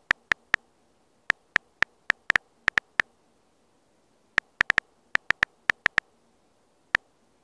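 Phone on-screen keyboard key-press clicks: one short, identical tick for each letter typed. They come in quick, irregular runs, with a pause of just over a second near the middle.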